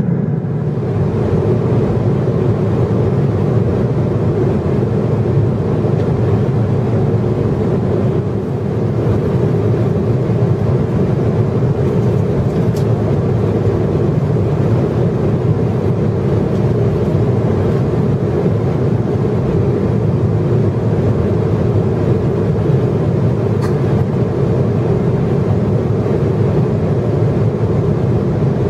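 Cabin noise of a Boeing 777-300ER in cruise at 35,000 feet: a loud, steady, low rush of airflow and the GE90 engines, even throughout.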